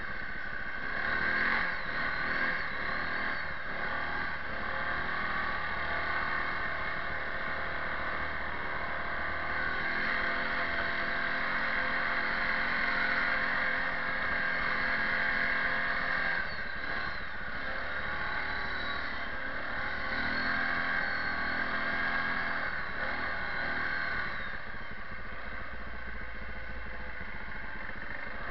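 Kawasaki 360 ATV engine running under load while driving through deep snow, its pitch rising and falling a few times with the throttle.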